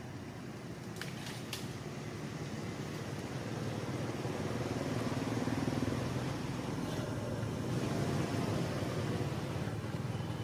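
Low, steady rumble of a motor vehicle engine, growing gradually louder over the first half, with a few faint clicks about a second in.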